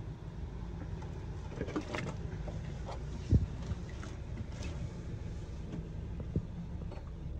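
Hands pulling and tearing at a matted mass of tree roots and muck in a manhole: scattered rustles and knocks over a steady low rumble, with one sharp thud about three and a half seconds in as the loudest sound.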